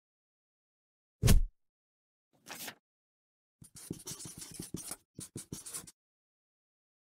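Edited-in sound effects: a loud low thud, a short swish, then about two seconds of rapid scratching and clicking.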